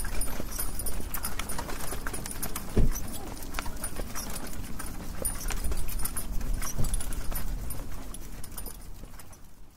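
Horse hooves clip-clopping, a run of irregular knocks that fades out near the end.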